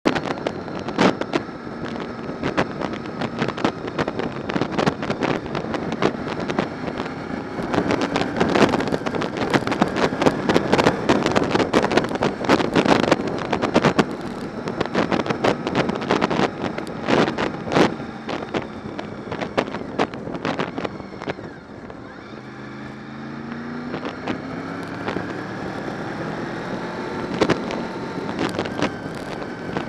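Honda VFR750's V4 engine running at road speed, with heavy wind buffeting on the microphone. About two-thirds of the way through it quietens briefly, then its pitch rises as the bike accelerates again.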